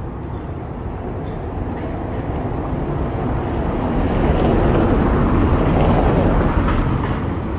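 A motor vehicle driving past on a stone-paved street: a rushing noise of tyres and engine that swells to a peak about five seconds in and then fades.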